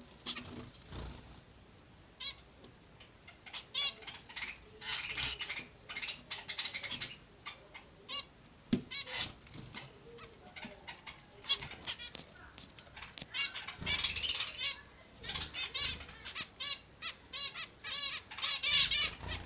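Zebra finch chicks begging: many short, high-pitched chirps repeated in quick runs, broken by pauses, with scattered clicks and rustles. The chirping is densest about two-thirds of the way in and near the end.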